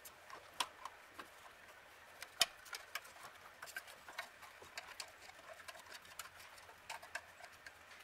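Irregular small metallic clicks and taps of hands and a small open-end wrench working a wire's terminal nut on the back of a 1948 Chevrolet gas gauge, with one sharper click about two and a half seconds in.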